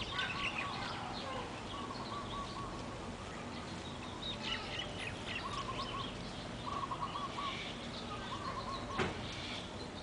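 Background birdsong: short warbling trills repeated several times, with scattered high chirps in between and a steady outdoor hum beneath. A single sharp click about nine seconds in.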